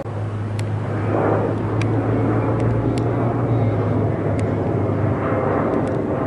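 Boeing 737-800 jet airliner flying overhead: a steady rushing jet-engine roar with a low hum under it, swelling about a second in.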